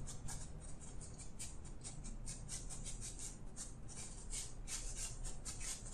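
Small paintbrush loaded with acrylic scratching across a stretched canvas in quick, short strokes, about three or four a second.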